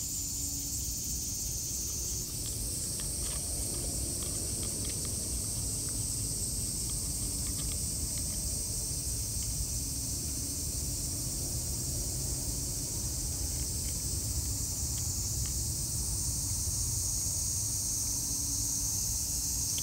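Insects chirring in a steady, high, even drone over a low rumble, with faint scattered clicks of a cat crunching dry kibble.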